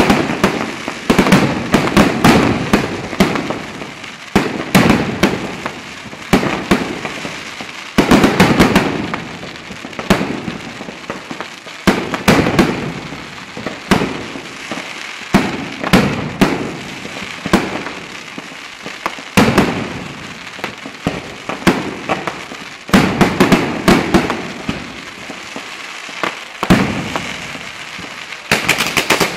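Mascletà: rapid volleys of loud firecracker bangs from a daytime pyrotechnic display. The bangs come in dense clusters with brief lulls and thicken into a heavy barrage near the end.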